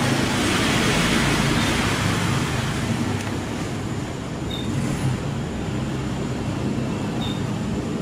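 Steady background rumble and hiss, easing slightly over the first few seconds.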